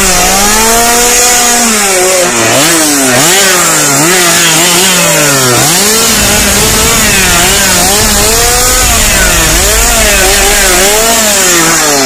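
Chainsaw engine being revved up and down over and over, its pitch swinging repeatedly without a break.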